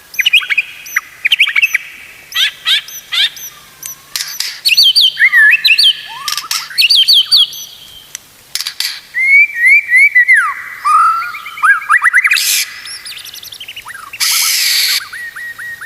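White-rumped shama (murai batu) singing a long, varied song: quick whistled notes, rising and falling glides and fast repeated trills, with a harsh rasping note near the end.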